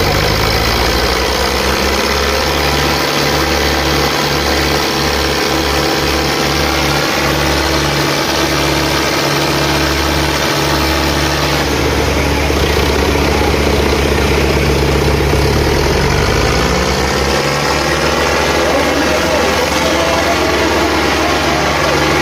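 Diesel tractor engines running hard under load in a tractor tug-of-war pull, a steady heavy engine note that dips and rises in pitch about three quarters of the way through.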